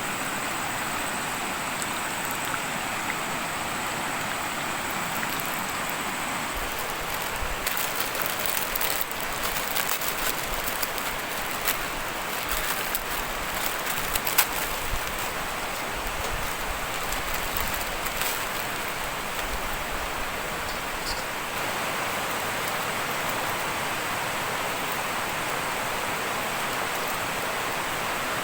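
Steady heavy rain, with a stretch of sharper taps and patters from about a quarter of the way in to past the middle.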